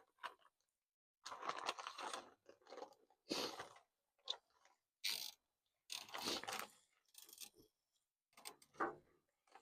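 Nylon cable tie being pulled tight through its locking head, giving a series of short, crunchy ratcheting zips in separate spurts over several seconds.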